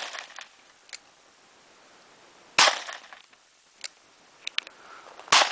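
Rifle shots: the fading tail of one shot at the start, then two sharp shots, one about two and a half seconds in and another near the end, each followed by a short reverberating tail. A few faint clicks fall between them.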